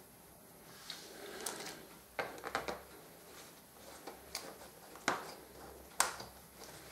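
Scattered light knocks and clicks of objects being handled on a workshop bench, about a second or less apart, during a motorcycle oil change.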